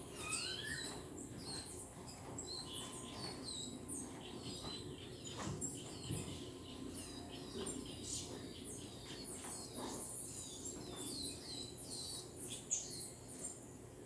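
Small songbirds chirping and twittering around a fruit feeder: many short, high chirps keep coming, with a few rising whistled notes near the start. A steady low hum runs underneath.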